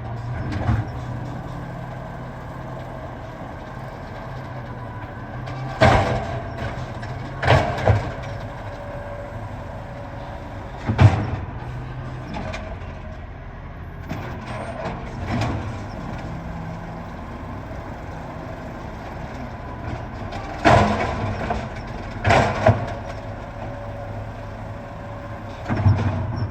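Garbage truck running steadily, with a series of loud sharp bangs and clanks, the loudest about eleven seconds in.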